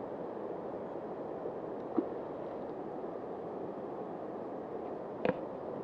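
Steady rush of a flowing river, with two short sharp knocks, one about two seconds in and a louder one near the end.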